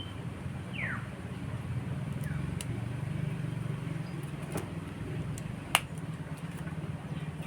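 Steady low background hum with a few faint falling bird chirps early on, and one sharp click a little under six seconds in.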